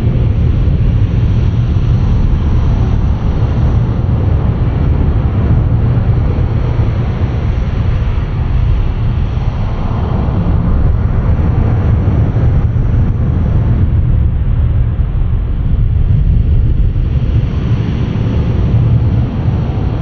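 Wind buffeting the microphone in a steady low rumble, over the wash of small surf breaking on the beach.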